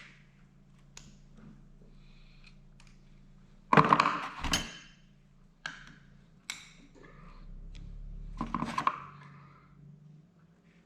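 Metal hydraulic pump parts being handled and fitted by hand. There are clanks and clicks of metal on metal, the loudest a clatter about four seconds in, two sharp clicks a couple of seconds later, and more clattering near the end, over a low steady hum.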